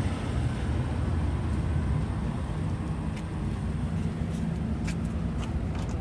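Steady low rumble of outdoor background noise, with a few faint clicks in the second half.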